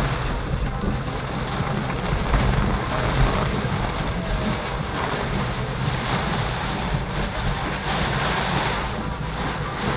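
Heavy tropical-storm rain hitting the roof and windshield of a car, heard from inside the cabin, over a steady low rumble from the vehicle.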